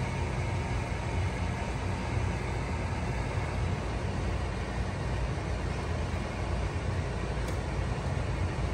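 Large stainless stockpots of birch sap at a rolling boil on a stovetop, a steady low rumble with a hiss as the sap is boiled down into syrup.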